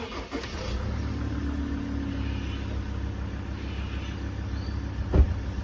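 Vehicle engine just fired up and running at idle, a steady low drone. One sharp knock comes a little after five seconds in.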